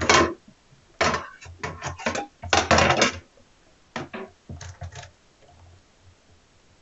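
Hard objects being handled and set down on a workbench: a tablet's removed aluminium back cover and a multimeter shifted about, with several short knocks and clatters in the first three seconds and fainter knocks about four and five seconds in.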